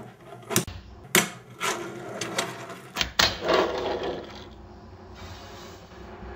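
Wooden 4-ply fingerboard tricked on a tabletop: the deck and trucks clack sharply against the table five or six times over the first three seconds, followed by about a second of rattly rolling and scraping of the small wheels.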